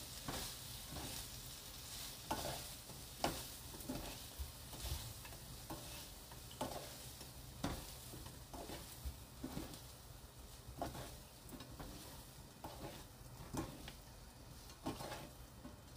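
Wooden spatula stirring and tossing sticky, sauce-glazed dried filefish strips in a nonstick frying pan: soft, irregular scrapes and taps over a faint steady hiss.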